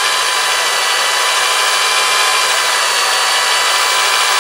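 Corded electric drill running steadily at full speed, boring a 1¼-inch bit into a bowling ball: a steady motor whine over the grinding of the bit cutting through the ball's hard shell.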